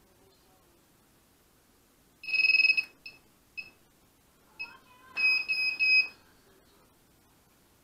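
Electronic beeps from the micro quadcopter's small piezo buzzer: one long high beep, two short ones, then three quick beeps in a row.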